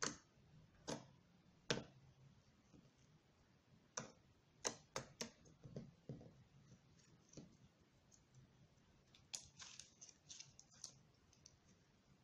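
Homemade slime being squeezed and stretched by hand, giving sharp clicks and pops at irregular intervals: three loud ones in the first two seconds, a cluster around four to five seconds in, and another run about nine to eleven seconds in.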